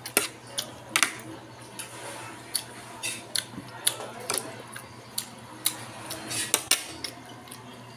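Close-up eating sounds: irregular sharp smacks and clicks as a man chews a mouthful of bamboo shoots and rice, eaten by hand from a plate.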